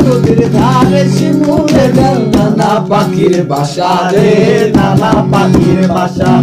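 Bangla song: a singer's melodic voice over an instrumental backing with a steady beat.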